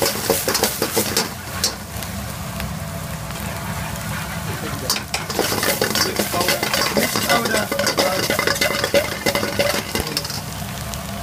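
Stir-frying in a carbon-steel wok: mushrooms, peas and onions sizzle in hot oil while a metal ladle scrapes and clacks against the wok again and again, over a steady low rumble.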